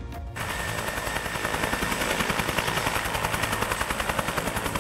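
Helicopter rotor beating in a fast, steady pulse, cutting in a moment in and building slightly louder.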